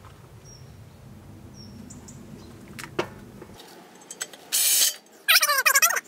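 Cordless drill with a toothed hole saw cutting into a steel box section, lubricated with cutting fluid. After a quiet start with one click about three seconds in, the saw bites from about four and a half seconds: a harsh grinding hiss, then a wavering squeal and chatter of the teeth on the steel.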